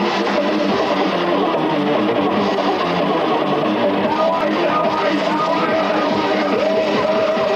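Guitar music playing steadily, with a long held note near the end.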